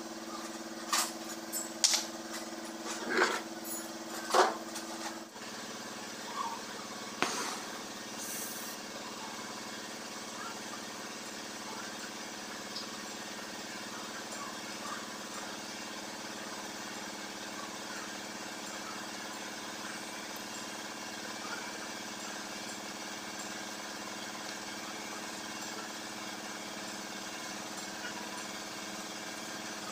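A few sharp metal knocks in the first five seconds as the radiator is handled, then a steady, even hiss with a low hum under it as a gas brazing torch is played along the radiator tank seam.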